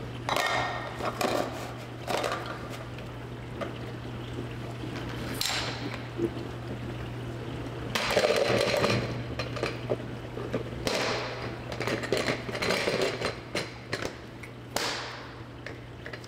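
Dry uncooked long-grain rice rattling in a glass measuring cup as a level cup is scooped and the excess spills back into a plastic rice bin, in a string of short pours, the longest about eight seconds in. A steady low hum runs underneath.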